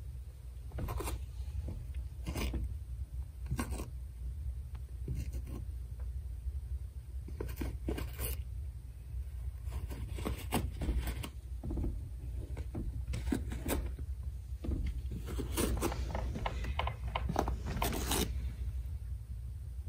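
Siamese cat tearing and biting a paper towel: irregular short ripping and rustling sounds of paper, some in quick clusters, over a steady low hum.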